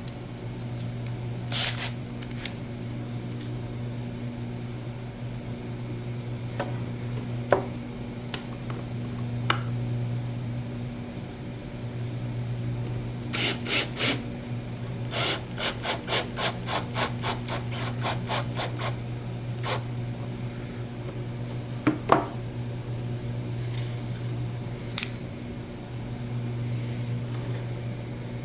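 Hand-tool work on a power supply enclosure: scraping and rubbing with scattered knocks, and a run of quick, evenly spaced clicks midway through, over a steady low hum.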